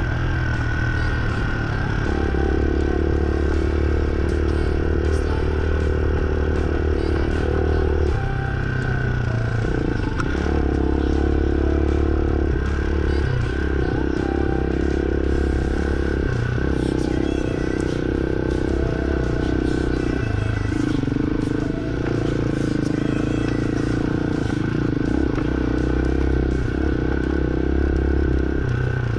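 Hawk 250 dual-sport motorcycle's single-cylinder four-stroke engine running under way over rough ground, its note rising and falling with the throttle several times, with rattling from the bike over the bumps.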